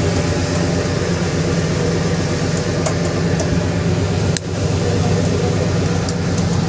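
A fishing vessel's engine running with a steady low drone, under a constant rush of wind and sea.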